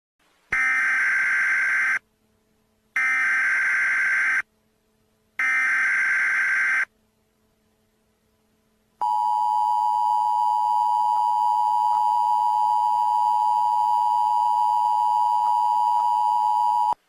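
Emergency Alert System SAME header: three bursts of warbling data tones, each about a second and a half long with short gaps between, followed by the EAS two-tone attention signal (853 and 960 Hz together), a steady tone held for about eight seconds before cutting off. This is the standard opening of an emergency alert, ahead of the spoken message.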